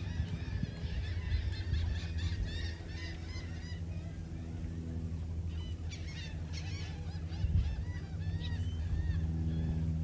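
A flock of seagulls calling, many short overlapping cries, busiest in the first few seconds and again around six to seven seconds in, over a steady low hum.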